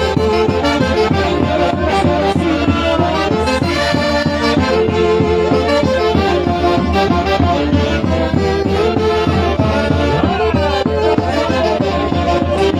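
Traditional Peruvian festival music from an orchestra: a busy melody over a steady bass, with a quick falling run near the end.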